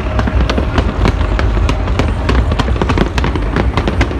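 Fireworks going off without pause: rapid crackling pops over a steady low rumble of bursts.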